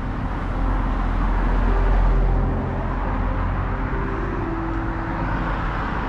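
Wind rumbling on a GoPro 9's foam-shielded microphone, mixed with road traffic noise. The low rumble swells from about half a second in and eases off after about two and a half seconds.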